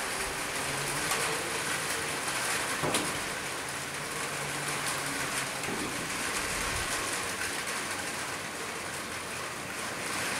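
Steady light-to-moderate rain falling as an even hiss, pattering on the rooftops.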